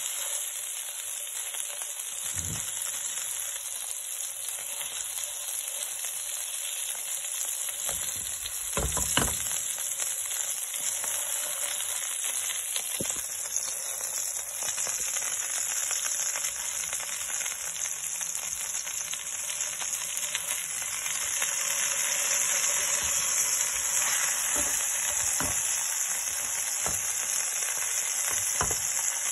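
A pork chop sizzling in hot oil in a nonstick wok, a steady frying hiss that grows a little louder about two-thirds of the way through. A few light knocks come through it.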